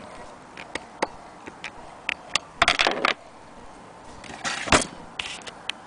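Willcox & Gibbs hand-cranked chain-stitch sewing machine being turned, its mechanism ticking and clicking irregularly, with two louder scraping rattles, one around the middle and one near the end.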